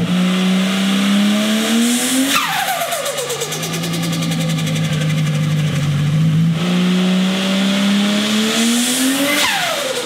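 Holden VL Turbo's RB30 turbocharged straight-six revved up twice. Each time the throttle snaps shut near the top, the turbo whine falls away quickly and the turbo flutters ('dose', compressor surge) through the dose pipe before the engine settles back to idle.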